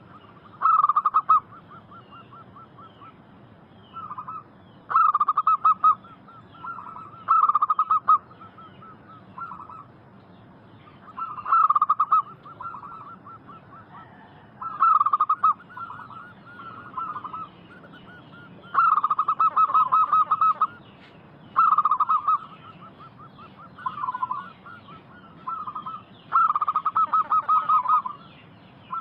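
Zebra doves (perkutut) cooing: a dozen or so short, rapidly pulsed coo phrases, each about a second long, repeated every second or two, some running together. Faint higher chirping sounds between them.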